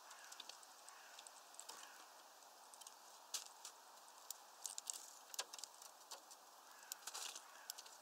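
Birds at a platform feeder of sunflower seeds: irregular light clicks and taps from beaks, feet and seed husks on the feeder tray, bunched in the middle and near the end, with a few faint chirps.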